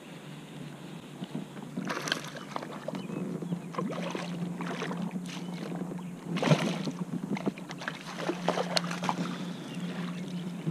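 Water splashing and knocking around a kayak as a hooked largemouth bass is reeled in and landed with a net, with irregular splashes and the loudest one about six and a half seconds in.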